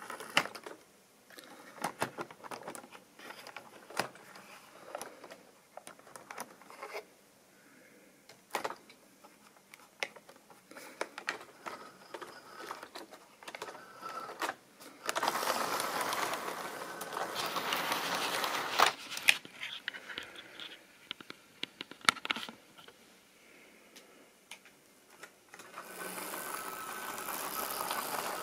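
OO gauge model diesel locomotive and coaches running on the track, with irregular clicks of wheels over rail joints and points. The model's motor and wheel noise swells into a steady rattling run about halfway through and again near the end as the train passes close.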